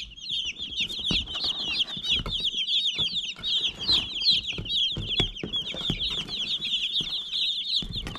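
A boxful of broiler chicks peeping constantly: a dense, overlapping stream of short, high peeps with no break.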